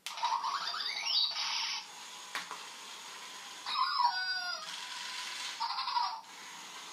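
Zhu Zhu Puppies Sabrina robotic toy dog playing electronic puppy sounds from its small speaker in three bursts: a rising cry at the start, a falling one about four seconds in, and a short one near six seconds. Between them a steady motor hum can be heard as the toy drives itself across the tile floor.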